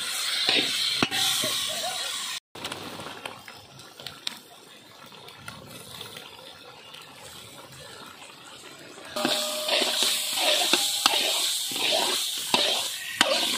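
Meat stew bubbling and sizzling in a large steel wok, quieter in the middle stretch. From about nine seconds in, a metal spatula stirs it, clattering and scraping against the pan.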